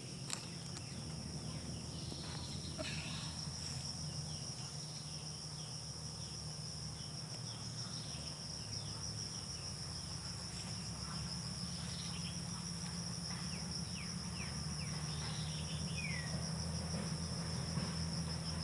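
Insects trilling steadily at a high pitch, a continuous fine-pulsed drone, with a few faint short chirps over it.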